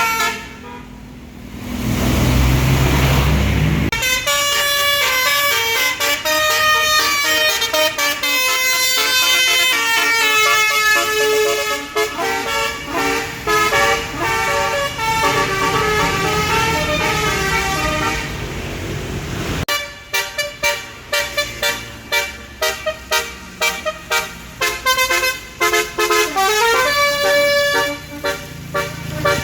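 Basuri 'telolet' bus air horn playing a melody of changing notes, then from about twenty seconds in a fast run of short staccato toots. A low rumble sounds for a couple of seconds near the start.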